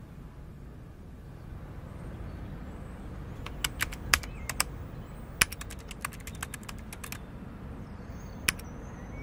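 Typing on a computer keyboard: a short run of irregular key clicks over a low steady hum, breaking off, then a single click near the end.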